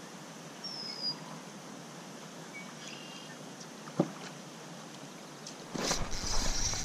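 Faint open-water ambience heard from a kayak, with a short high chirp near the start and a single sharp knock about four seconds in. Near the end a burst of louder, rough buffeting noise starts, the angler's movement as he hooks a fish.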